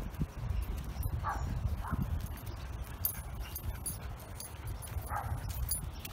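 A dog barking three short times, about one, two and five seconds in, over a steady low rumble.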